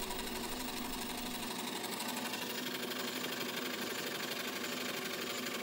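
Small motorised scroll saw on a home-built CNC rig running, its blade reciprocating in a rapid, steady chatter with a hum; a low rumble drops out about a second and a half in.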